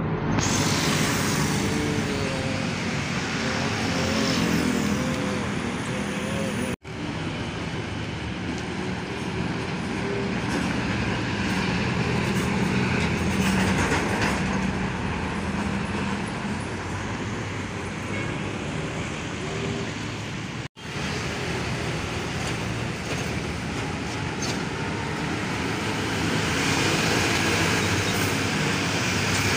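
Heavy diesel trucks passing on a city road amid general traffic: engine drone and tyre noise. The sound cuts out for a split second twice, about a quarter and two thirds of the way in.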